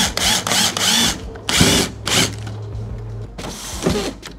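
Cordless drill driving long quarter-inch bolts down through a trolling motor base into a wooden boat deck. It runs in several short spurts over the first couple of seconds, then once more near the end.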